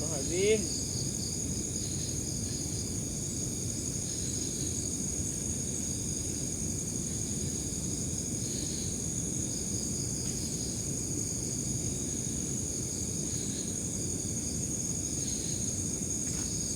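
Night insect chorus of crickets, a steady high-pitched drone, over a low, even background rumble.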